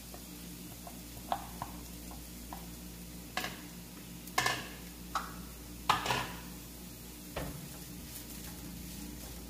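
Silicone spatula stirring and scraping diced mushrooms and onion around a frying pan, a series of short knocks and scrapes against the pan, loudest around the middle, over a light sizzle of frying in olive oil.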